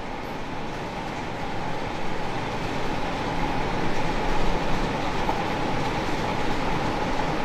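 Bowling-lane machinery running: a steady rumble with a constant hum, swelling slightly about halfway through.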